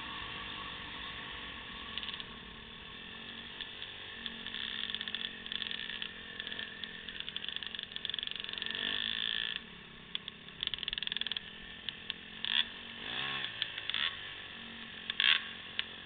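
Motocross dirt bike engine running at low, steady revs, with a quick rise and fall in revs about 13 seconds in. There are a few short, sharp bursts of noise near the end.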